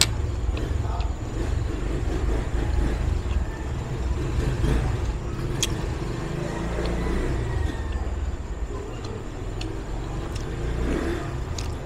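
Steady low rumble, with a few faint light clicks scattered through it.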